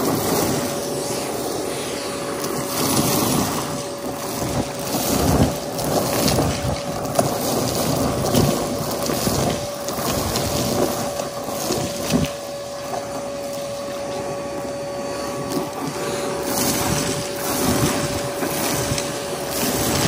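Vacuum cleaner running and vacuuming, its motor holding a steady whine while the rush of air swells and eases, with a few soft knocks along the way.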